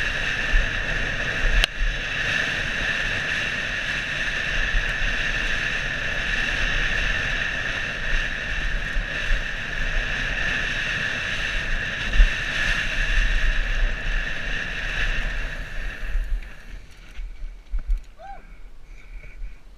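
Downhill mountain bike rolling fast over a dirt trail, heard from a helmet-mounted camera: steady wind rush on the microphone with the rumble and knocks of the tyres and bike over the ground. About three seconds before the end it drops off as the bike slows to a stop.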